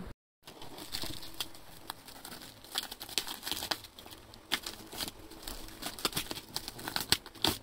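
Clear plastic stretch wrap on a cardboard box crinkling as it is cut and peeled away by hand, with many sharp crackles and snaps.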